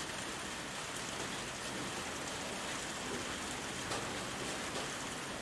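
Small metal lathe running steadily with an even hiss while taking a light cut of about ten thou on a hinge pin.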